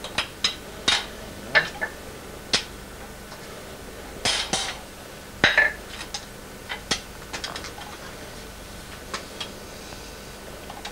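Sharp metallic taps and clinks, irregularly spaced, from riveting a metal barrel hoop on a small anvil; a few strikes ring briefly.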